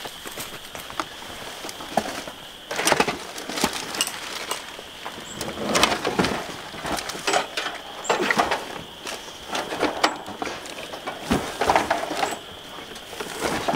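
Camping gear rustling and clattering as it is carried and handled, with footsteps in dry leaf litter, in irregular bursts. A faint steady high whine runs underneath.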